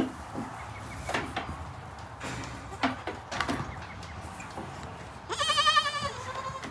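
A goat bleats once, about five seconds in, a quavering call lasting about a second. Before it come a few scattered knocks and rustles.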